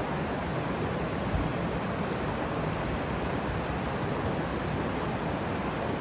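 Waterfall: a steady, even rush of falling water, with a brief low thump about a second and a half in.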